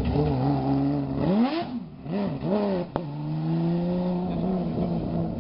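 Porsche 997 GT3 rally car's flat-six engine under hard driving. The revs climb steeply, then rise and fall in several quick blips, then pull steadily with a slowly rising pitch. There is a single sharp click about three seconds in.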